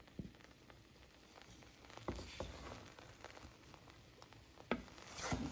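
Wooden spatula turning boiled rice in a nonstick pot: faint scattered clicks, light taps and soft scrapes, a little louder about two seconds in and near the end.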